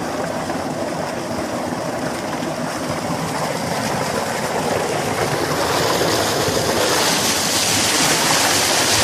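Pumped water gushing from a tubewell's outlet pipe into a concrete tank and splashing, a steady rush that grows louder and hissier about six seconds in as the stream falls over a person sitting under the outlet.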